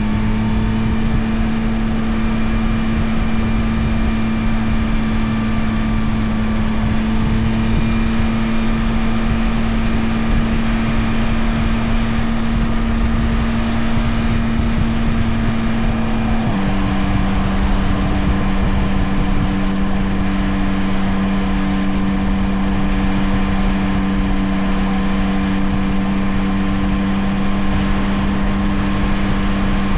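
Yamaha Tracer 9 GT+ motorcycle's CP3 890 cc inline three-cylinder engine running at a steady cruise, with a constant rush of wind and road noise. A little past halfway, the engine note drops abruptly to a slightly lower steady pitch.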